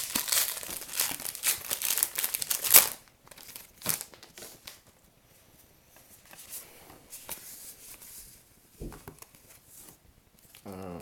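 Wrapper of a baseball trading-card pack crinkling and tearing as it is ripped open, dense crackling for about three seconds, then quieter handling with a few soft clicks and a low thump near nine seconds.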